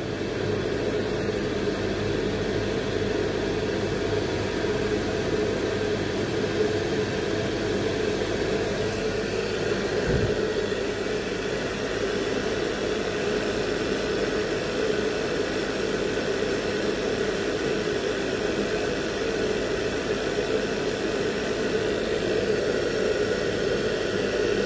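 Commercial gas boiler firing at high fire: a steady rushing of the burner flame and combustion fan, with a constant hum underneath. A brief low thud comes about ten seconds in.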